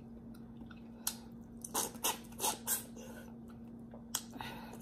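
Wet mouth sounds of eating stewed turkey neck bone by hand: short smacks and sucks as the meat is pulled off the bone, several in quick succession in the middle and a couple more near the end, over a faint steady hum.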